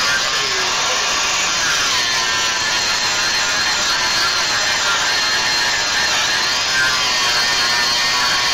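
Angle grinder grinding down a steel frame rivet head, a steady grinding noise with a high motor whine that dips in pitch a few times and recovers.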